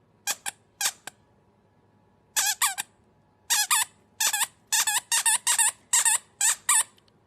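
A series of short, high, wavering squeaks, about eighteen, coming in quick clusters that get more frequent through the second half.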